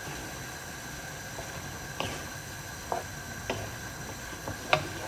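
Chicken, tomato and spinach sauce simmering in a frying pan with a steady faint sizzle, while a wooden spoon stirs it. The spoon knocks against the pan a few times in the second half.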